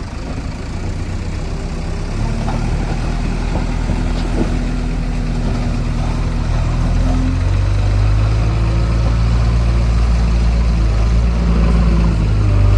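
Diesel engine of a JCB 3DX backhoe loader running steadily. It grows louder over the first couple of seconds, and its note shifts about seven seconds in.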